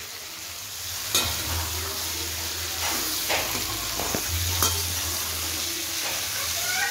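Boiled gooseberry (amla) pieces sizzling in hot sesame oil as the water left from boiling cooks off. A perforated metal spatula stirs and tosses them, clicking against the pan a few times.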